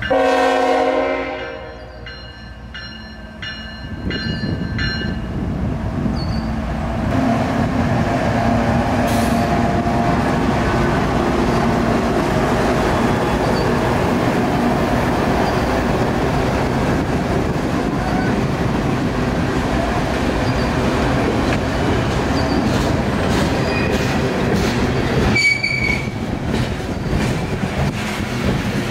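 Norfolk Southern GE Evolution Series diesel locomotives, an ES44DC and an ET44AC, pass close by with a freight train. The horn sounds briefly at the start over a grade-crossing bell that rings steadily for the first few seconds. Then comes the loud, steady rumble of the diesels and the freight cars rolling over the rails, with a short wheel squeal near the end.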